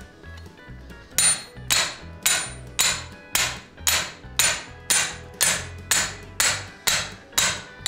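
Hand hammer striking red-hot steel on an anvil in steady, evenly spaced blows, about two a second, each ringing briefly. The blows start after a short pause about a second in. This is the forge-welding stage of making a hewing axe.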